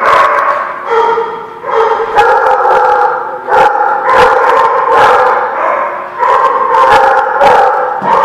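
A group of small dogs barking and yapping almost without pause, loud, with many sharp yips over a constant din.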